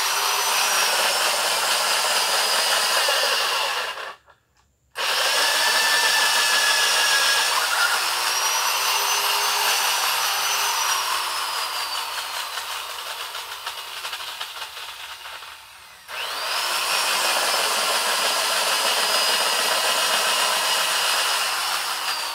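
Small handheld chainsaw cutting massaranduba hardwood planks. Its motor whine sags in pitch as the chain bites into the wood and climbs again as it frees. The saw cuts out briefly about four seconds in, fades from around twelve seconds, then starts again sharply at about sixteen seconds.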